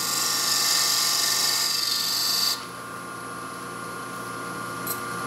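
Point tool cutting a spinning wooden spigot on a wood lathe: a hissing, scraping cut that stops about two and a half seconds in, over the lathe's steady motor whine.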